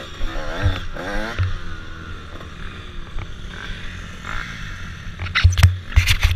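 Dirt bike engine running at low speed as the bike rolls to a stop, its pitch wavering up and down in the first second or so. From about five seconds in there are loud knocks and scrapes from the helmet camera being handled.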